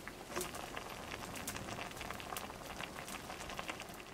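Pot of kimchi hot-pot broth simmering, a faint bubbling with many small irregular pops and ticks.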